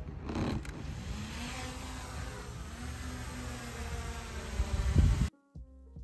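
DJI Mini 3 quadcopter's propellers buzzing as it takes off and climbs away, the pitch rising and then dipping, over a low rumble. About five seconds in it cuts off suddenly to background music.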